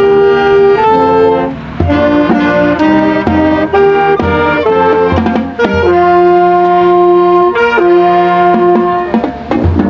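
Marching band playing a tune on brass and wind instruments, the notes changing quickly at first, then settling into two long held chords in the second half.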